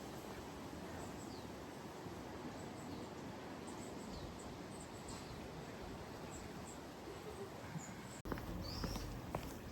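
Outdoor ambience: a steady hiss of background noise with many faint, short high bird chirps. Near the end it cuts to a different ambience with a low rumble and a few sharp clicks.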